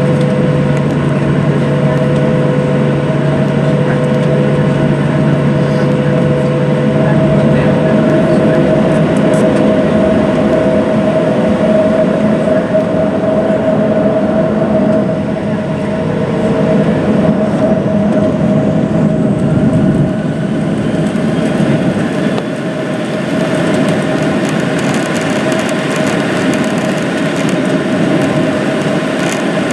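Cabin noise of a Boeing 737-700 taxiing, heard from inside over the wing: a steady whine from its CFM56 jet engines at low thrust over a continuous rumble. The low rumble eases about two-thirds of the way in.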